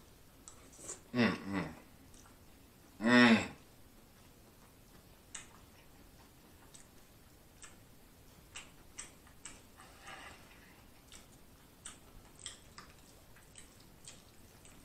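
A man humming "mmm" in enjoyment of the food, twice in the first few seconds, the second longer and louder; after that only soft chewing and lip-smacking clicks.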